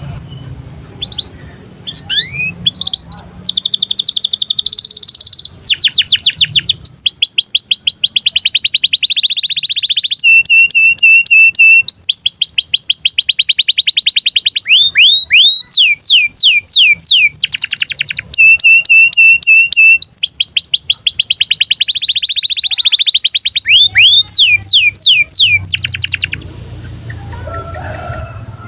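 Canary in breeding condition singing a long song of fast rolling trills, each made of rapidly repeated sweeping notes, broken by short runs of a steady held note. The song stops about three-quarters of the way through, leaving a faint low background.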